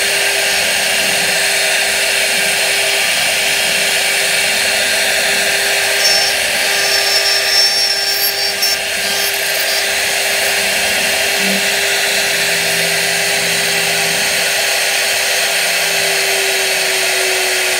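CNC router spindles running and carving wood with small bits: a steady spindle whine over the hiss of the cutting. About six seconds in the sound turns louder and uneven for a few seconds, and near the end the whine drops slightly in pitch.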